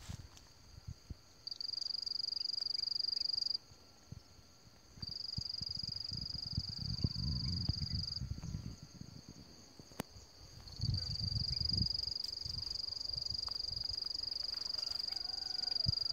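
An insect singing a steady high-pitched buzz in long stretches of a few seconds each, breaking off and starting again three times. A couple of low rumbles come in around the middle.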